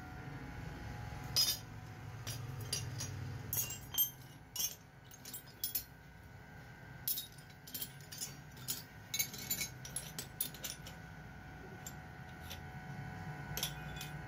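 Flat metal blade blanks and offcuts clinking and scraping against one another as they are handled and sorted in a pile, in short irregular clusters of clinks over a faint steady hum.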